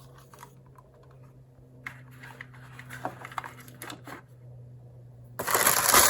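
Handling of plastic phone accessories and packaging: scattered light clicks and taps, then about five seconds in a loud rustle of packaging, over a faint steady hum.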